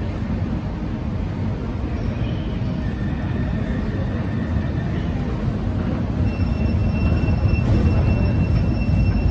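Low, steady rumble of an underground metro station, growing louder about six seconds in, with a faint high whine over it from around then.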